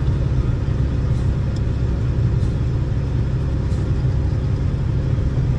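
Steady low drone of a semi truck's engine and road noise, heard inside the sleeper cab while driving.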